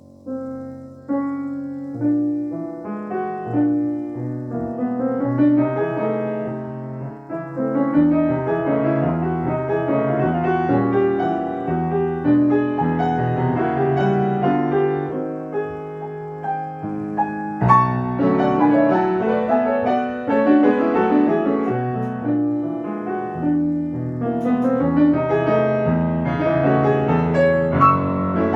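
Solo piano playing a classical piece. It opens softly with a few notes and builds into full, rich chords, with a strong accented chord about two-thirds of the way through.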